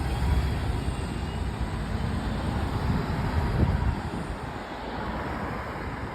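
A bus driving by, its low engine rumble fading away after about four seconds.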